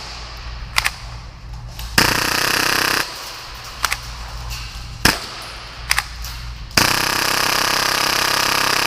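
Full-auto gas blowback Hi-Capa airsoft pistol firing: a few single pops, a rapid burst of about a second starting about two seconds in, and a longer rapid burst starting near the end. The gun won't keep firing and keeps cutting out. The shooter believes a gap has opened at the magazine adapter, causing pressurization issues.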